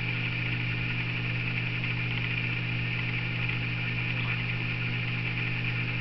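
Steady electrical hum with a fixed low buzz and an even higher hiss behind it, unchanging throughout.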